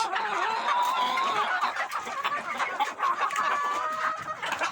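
Domestic chickens clucking and calling while feeding, with two drawn-out wavering calls, one about a second in and another in the second half.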